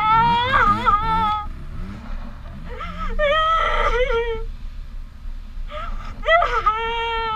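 A high-pitched voice calling out in three long, drawn-out wails, each rising and then held, over a steady low rumble.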